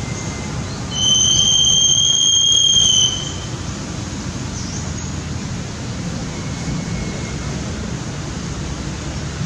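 A steady, high-pitched squeal about two seconds long that starts and stops abruptly, over a low background hum, with a few faint chirps later.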